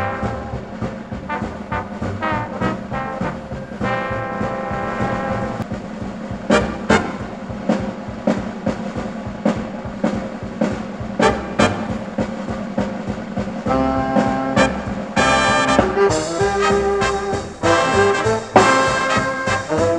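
Background music with a regular beat, growing fuller and louder about fourteen seconds in.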